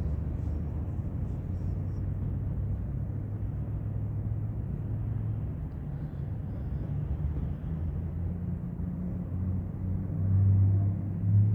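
Long freight train rolling past, a steady low rumble with a diesel locomotive engine hum that grows louder near the end.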